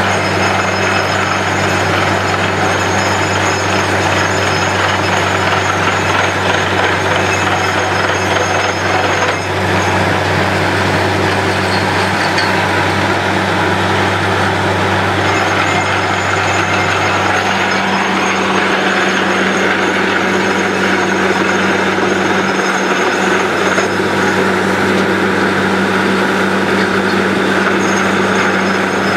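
Truck-mounted borewell drilling rig running steadily while drilling, its engine drone mixed with the rush and splash of muddy water and cuttings blown out of the bore. The engine note shifts a little about two-thirds of the way through.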